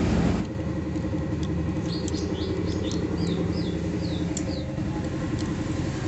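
Honda Supra's four-stroke single-cylinder engine idling with its cam chain cover removed, running rough; only part of the noise comes from the cam chain (rantai keteng), the rest from elsewhere in the engine. A run of short high chirps sounds from about two to four and a half seconds in.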